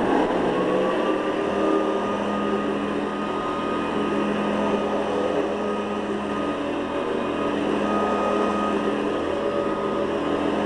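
Hoover Guardsman commercial upright vacuum cleaner running steadily, a motor hum with a steady whine. It has just been switched on, and its whine rises slightly over the first second as the motor comes up to speed.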